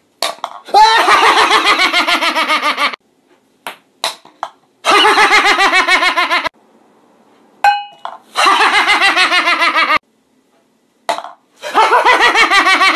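A man's loud, rapid staccato laughter in four long bouts of about two seconds each, separated by short silences. Between the bouts come a few brief clicks and one short ringing clink.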